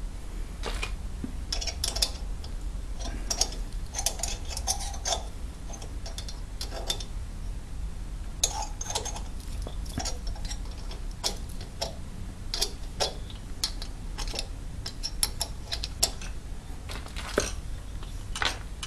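Tap wrench turning a thread-repair tap in a rocker-stud hole, with irregular small metal clicks and ticks as the wrench is worked round. The tap is being run back in to pick up the last swarf from the freshly cut thread.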